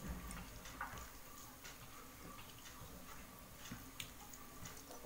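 Fingers mixing rice and fish curry on a metal plate, with soft wet squishing and scattered light clicks against the plate.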